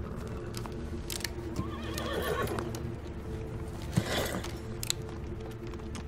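Horse whinnying softly around two seconds in and giving a short blow through its nostrils about four seconds in, with a few small clicks, over a low steady drone.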